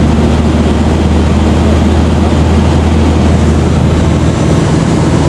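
Small propeller plane's engine and propeller running steadily in flight, heard loud from on board with rushing air. The engine note drops slightly about four and a half seconds in.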